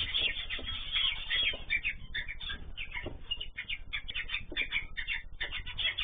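Aviary of cage birds, cockatiels, canaries and zebra finches, chirping and calling, with many short calls overlapping. A low steady hum runs underneath.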